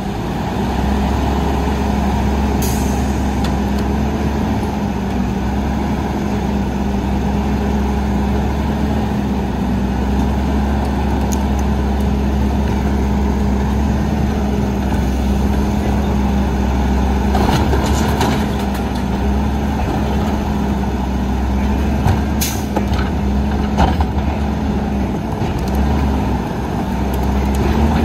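Front-loading garbage truck running steadily, its diesel engine rumbling with a constant hum. A few short sharp noises cut in, mostly in the second half.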